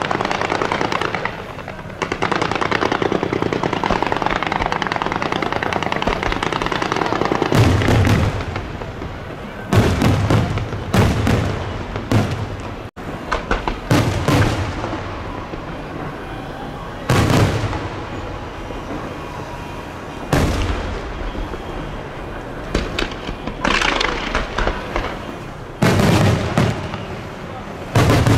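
Aerial fireworks display. For the first several seconds there is a dense, continuous crackling barrage as shells rise and burst. From about eight seconds in come a series of heavy booms from bursting shells, a second or few apart, with crackle between them.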